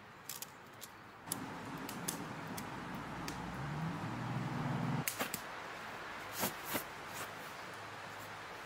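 A gust of wind rushes in and builds for a few seconds, then drops off sharply about five seconds in. A lower steady wind noise follows, with a few sharp clicks.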